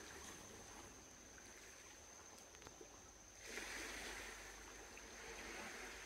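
Faint rushing water, a soft even hiss that swells about halfway through, with a thin steady high-pitched whine underneath.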